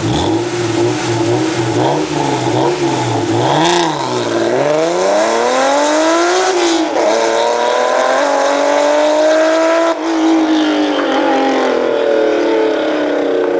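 Supercharged Honda NSX V6 breathing through a GTone F1 V5.1 exhaust: a few quick revs at standstill, then a hard launch and full-throttle acceleration. The pitch climbs through the gears with two upshifts and falls away near the end as the car pulls off into the distance.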